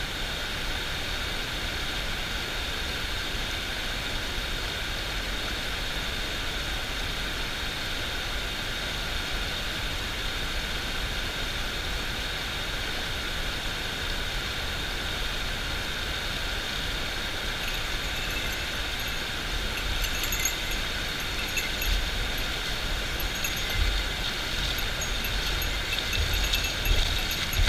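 Shallow mountain-river rapids rushing steadily over stones, an even wash of water noise, with a few low bumps near the end.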